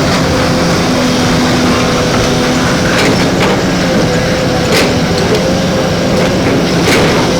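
Backhoe loader's engine running steadily with a steady hum, and a few sharp clanks about three, five and seven seconds in.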